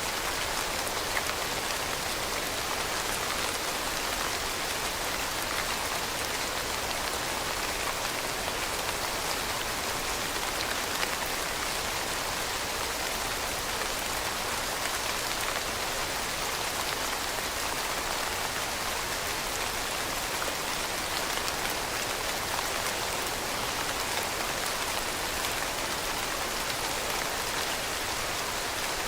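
Steady rain falling, with a dense patter of drops on a surface.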